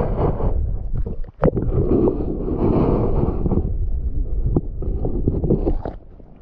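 Wind buffeting the microphone in a steady low rumble, with scattered clicks and one sharp knock about one and a half seconds in; the rumble drops away near the end.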